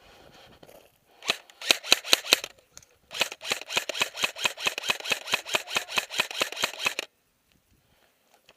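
Airsoft rifle firing close by: a short string of shots, then a steady run of sharp cracks at about eight a second for some four seconds, stopping abruptly.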